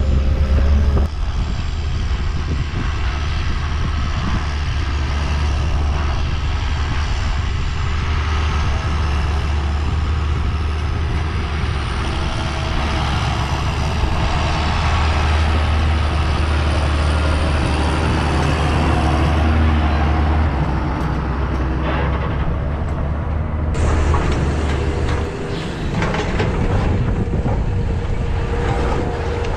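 Diesel engine of a John Deere tractor running steadily as it pulls a trailer along a dirt site track, with a deep constant drone. About 24 seconds in the sound changes to a Cat tracked excavator working, its engine joined by a steady higher tone.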